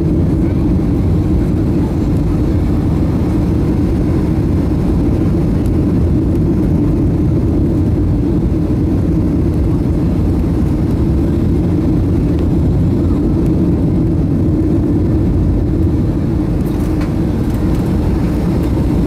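Steady low rumble inside the cabin of a Boeing 757-200 on final approach with flaps extended, from the engines and the air rushing past.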